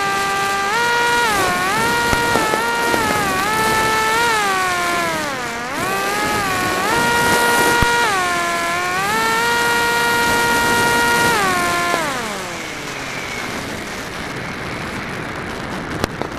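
RC flying wing's motor and propeller whining through the onboard camera, the pitch dipping and rising several times with throttle, then winding down and fading about twelve seconds in. A steady rushing noise follows, with a couple of faint firework cracks near the end.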